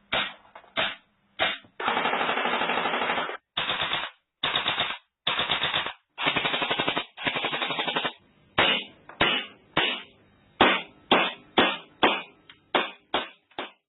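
Airsoft gun dry-firing with no BBs loaded. It fires a few single shots, then a series of full-auto bursts each lasting about half a second to a second and a half, then a run of single shots about two a second near the end.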